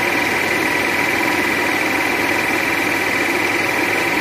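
Projector running: a steady mechanical whirr with a fast, even rattle and a high hum over it, with no clunks or changes.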